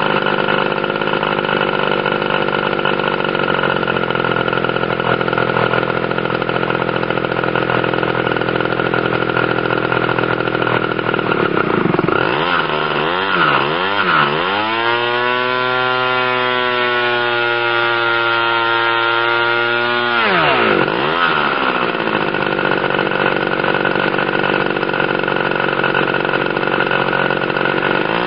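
Irvine 120 two-stroke glow model aircraft engine running steadily. About twelve seconds in, the revs swing up and down a few times, then hold at a higher, steady pitch for about five seconds. The revs then drop back to the earlier speed and climb again near the end.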